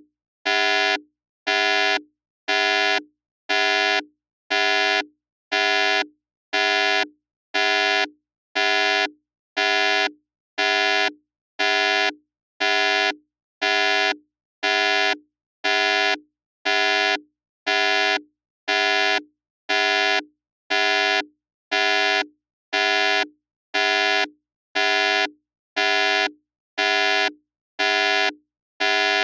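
Electronic alarm buzzer sounding in short, buzzy beeps at one steady pitch, about one a second.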